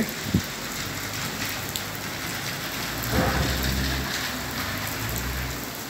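Heavy rain pouring down, a steady even hiss, with a low rumble swelling about three seconds in.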